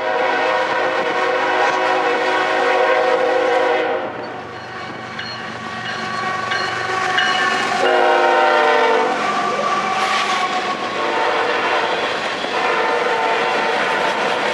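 Freight locomotive's multi-chime air horn sounding a long blast, then a shorter one about 8 seconds in, over the steady running noise of a train.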